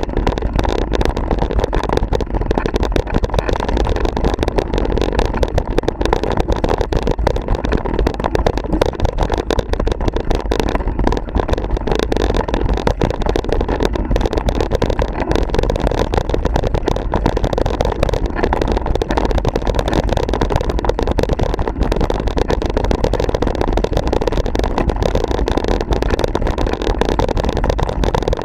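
Steady wind rush and rattling from a camera on a mountain bike riding fast down a bumpy dirt trail, with constant small knocks and clatter from the bumps.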